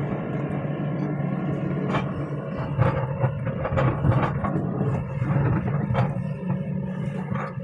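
Excavator engine running steadily, heard from inside the cab, with several sharp knocks and clanks over it as the machine works.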